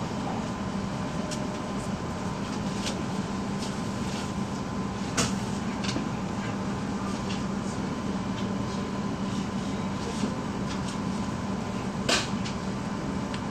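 Steady running noise inside an E7/W7-series Hokuriku Shinkansen car at speed: an even rumble with a low hum, broken by scattered sharp clicks, the loudest about five seconds in and about twelve seconds in.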